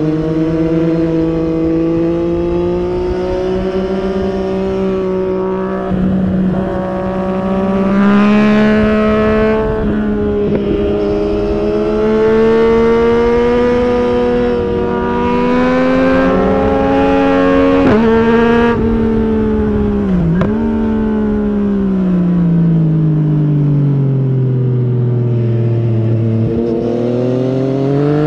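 Yamaha MT-09 SP's inline three-cylinder engine through an Akrapovic carbon racing exhaust, under way and pulling through the gears. The revs rise and fall repeatedly, with brief breaks at the gear changes and a quick drop and recovery about two-thirds of the way through.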